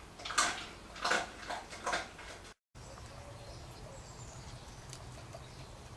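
Four short rustling scuffles in the first two seconds, then the sound cuts to a faint, steady outdoor background with a low hum.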